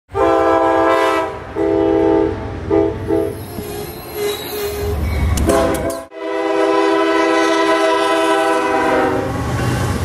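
Locomotive air horns: a passenger train's horn sounds a series of blasts, two long and one short, then after a sudden break a freight locomotive's horn holds one long blast. Near the end the horn gives way to the low rumble of diesel locomotives passing close by.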